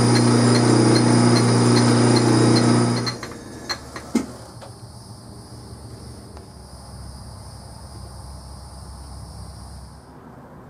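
Handheld gas torch burning, a loud hiss with a steady hum in it, as it heats the aluminium arbor to soften the superglue holding the brass flywheel; the flame cuts off about three seconds in. A couple of sharp clicks follow a second later.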